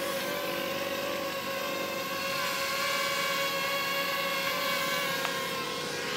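DJI Ryze Tello mini quadcopter hovering close by, its propellers giving a steady high buzzing whine whose pitch dips slightly near the end.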